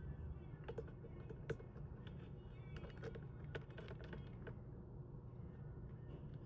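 Scattered small clicks and taps of plastic parts being handled and pulled apart, over a low steady hum.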